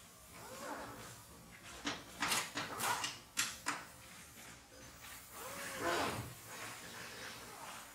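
Steel ruler sliding through the slot of a wooden beech marking-gauge block, scraping, with a quick run of sharp clicks and knocks about two to three and a half seconds in and another scrape near the end.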